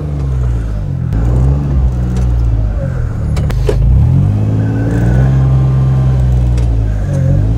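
John Deere Gator utility vehicle's engine revving up and down several times, holding higher for a couple of seconds past the middle, as its slick, low-profile street tires spin without grip in snow.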